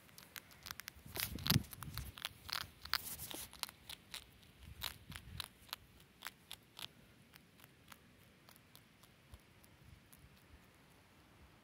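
Hedgehog crunching dry dog biscuits: a quick run of sharp crunches and clicks, loudest in the first few seconds and thinning out to odd clicks after about seven seconds.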